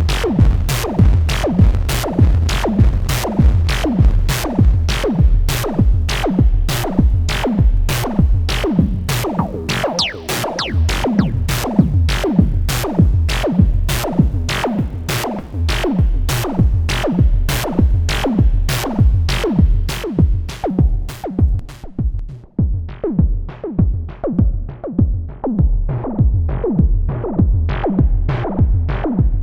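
Moog DFAM analogue drum synthesizer playing a sequenced electronic beat: evenly spaced percussive hits, each with a pitch that falls quickly. About two-thirds of the way in, the bright top end of the hits drops away as the filter is switched, leaving duller, bass-heavy hits.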